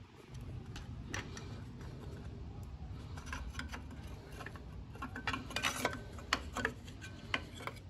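Small metallic clicks and scrapes as screws are backed out with a hand driver and a sheet-metal chip shield plate is worked loose from a lathe apron, with a run of sharper clinks about five to seven seconds in.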